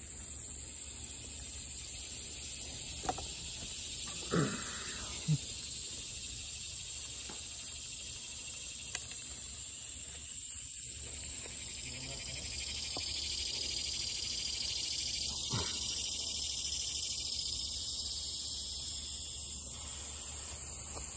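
Steady high-pitched insect chorus, with a hiss swelling underneath for a while in the second half and a few short knocks around the third to sixth seconds and again past the middle.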